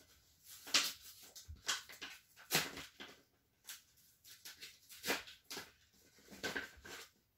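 Hands tearing and crinkling open a small kraft-paper packet: a string of short, irregular rustles and rips.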